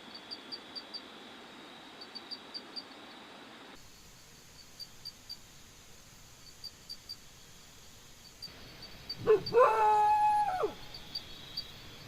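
Dog giving a short yelp and then a held, howling whine of about a second, three quarters of the way in. Night insects chirp in quick repeated trills throughout.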